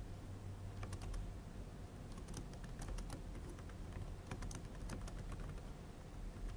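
Typing on a computer keyboard: quiet, irregular keystrokes in short runs, over a low steady hum.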